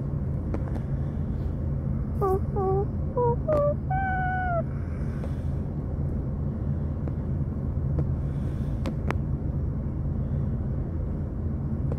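Steady low rumble of a car cabin on the move. About two seconds in comes a run of five short high-pitched vocal calls, the last one longer and slightly falling.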